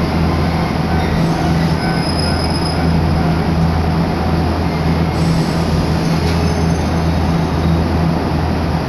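Choshi Electric Railway train running along the track, heard from inside the car: a steady rumble of wheels on rail with a continuous low hum.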